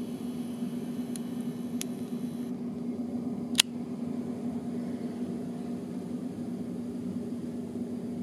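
Steady mechanical hum of room ventilation with a low fixed tone, and a single sharp click about three and a half seconds in.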